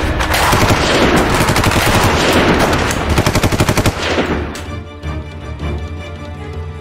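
Sustained automatic gunfire, a rapid stream of shots that cuts off about four and a half seconds in, leaving low background music.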